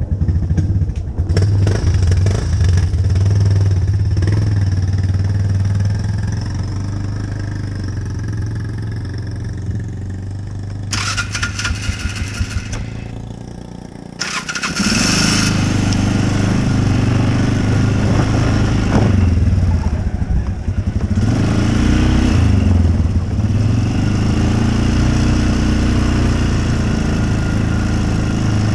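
Off-road vehicle engine running, rising and falling in pitch as it revs. About halfway through it drops away briefly, then comes back louder.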